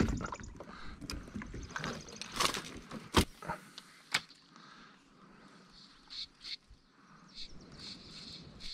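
Sharp knocks and clicks of gear being handled in a kayak, the loudest about three seconds in. From about the middle on, birds chirp in short, high calls.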